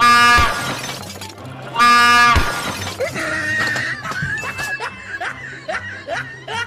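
Two loud, sudden blasts of a train horn, each about half a second long, the second about two seconds after the first. Short rising and falling sounds follow over the background music.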